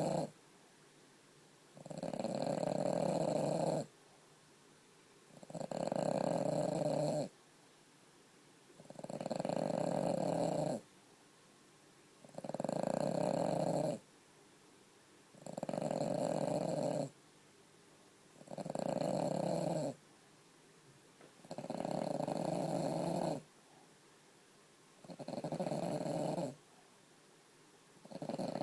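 French bulldog snoring in deep sleep: long, even snores of about two seconds each, one every three seconds or so, with quiet breaths between.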